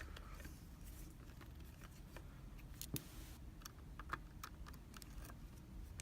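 Faint, scattered small clicks and taps of a tension tool and pick being handled and set in a small padlock's keyway.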